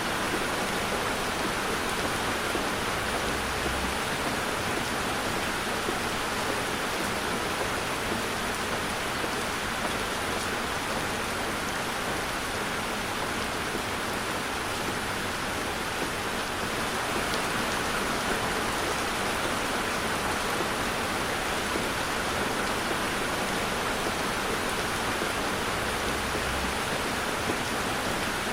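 Heavy rain falling steadily on a car, a constant even hiss with no let-up.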